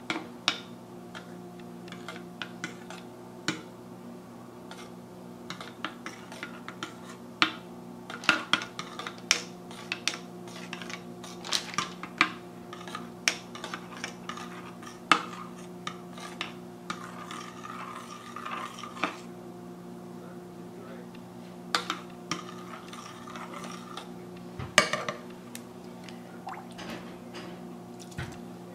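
Metal spoon stirring thick goat milk liquid soap in a glass Pyrex measuring jug, clinking and scraping against the glass at irregular intervals, while a 20% salt solution is mixed in to thicken it. A steady low hum runs underneath.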